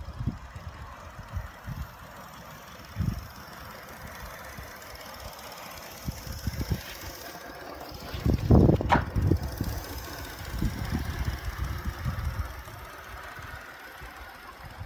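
Live steam model locomotive running on the track, with uneven low rumbling and knocking; it is loudest about eight to nine seconds in, with a brief rising tone.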